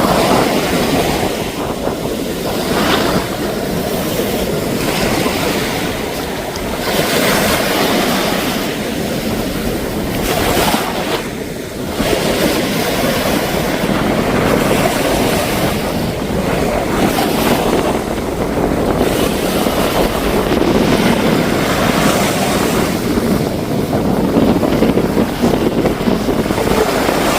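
Sea waves breaking and washing up on a beach, a loud surging hiss that swells and eases, with wind buffeting the microphone.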